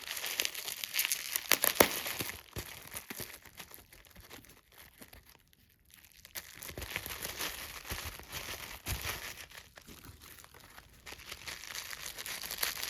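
Protective packaging around a glass pendant being unwrapped by hand: crinkling and tearing of the wrapping, with a brief quiet pause near the middle.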